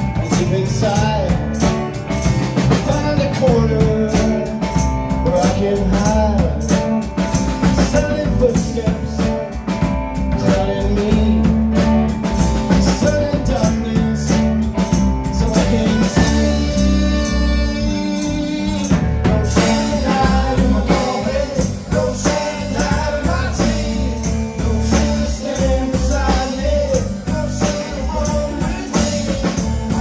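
Live rock band playing: male lead vocals over electric guitar, electric keyboard, drum kit and tambourine, with a steady beat. The singing pauses briefly about halfway through while the band plays on.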